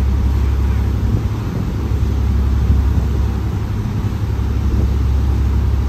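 Steady low drone of a lake passenger ship's engine, heard on board, with a faint hiss over it.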